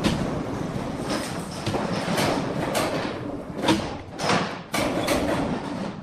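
Overhead crane rumbling and clattering as it carries a large log hanging in slings, with several sharp knocks and scrapes.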